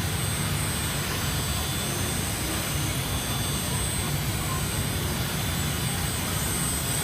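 High-speed CNC machining center running steadily: an even mechanical hum with a low rumble and a thin, constant high-pitched whine.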